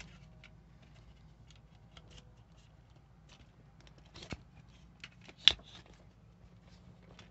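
Scattered small clicks and knocks from objects being handled, with one sharp click about five and a half seconds in.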